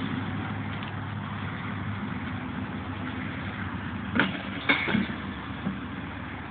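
Steady low mechanical hum, like an engine idling, with two or three sharp knocks about four to five seconds in.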